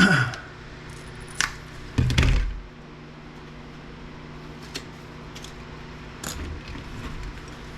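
Hands working on plasma TV circuit boards and connectors: a few sharp clicks and knocks of plastic and metal parts, the loudest a dull knock about two seconds in, over a steady low hum.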